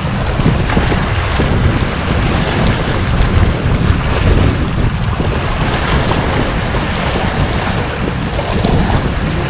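Wind buffeting the microphone over the steady wash of sea waves on the shore.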